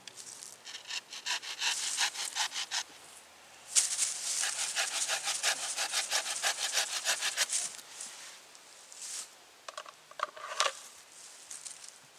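Wooden pole rasping in quick, rhythmic strokes, about five a second: a short bout early, then a longer, louder bout from about four to seven and a half seconds in, with a few single scrapes near the end.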